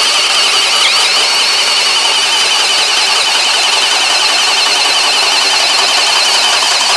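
Hercules 20V brushless hammer drill running steadily on low speed in drill mode, boring a large self-drilling bit through cedar lumber under load. Its high motor whine wavers slightly.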